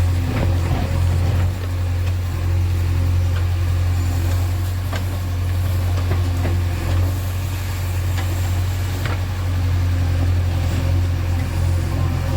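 JCB backhoe loader's diesel engine running steadily as a low drone, with a few faint knocks scattered through it.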